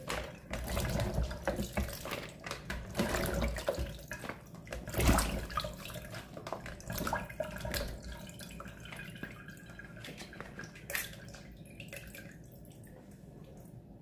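Water splashing and dripping as fresh okra pods are rinsed and lifted in a plastic colander over a bowl of water in a steel sink, with the pods knocking lightly against the plastic. The splashing is irregular and grows quieter toward the end.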